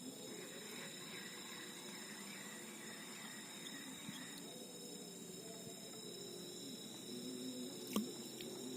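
Night insects, such as crickets, calling steadily at several high pitches, with one sharp click near the end.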